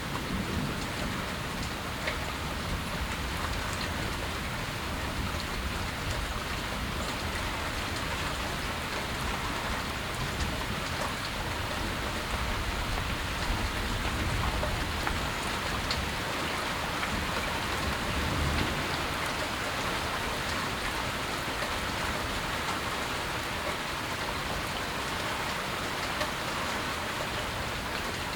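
Steady moderate rain falling during a thunderstorm, a dense continuous patter of drops, with a few brief low rumbles now and then.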